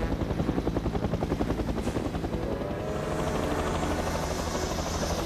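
Cartoon helicopter rotor sound effect: a fast, steady chop as the helicopter flies off, with background music coming in about halfway through.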